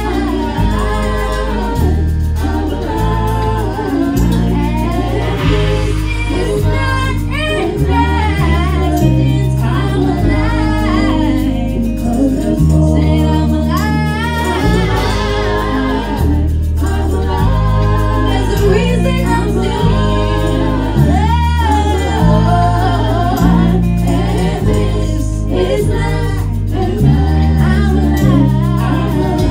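Gospel praise-and-worship song: a woman sings the lead into a microphone while other female voices sing behind her, over accompaniment with a deep bass line.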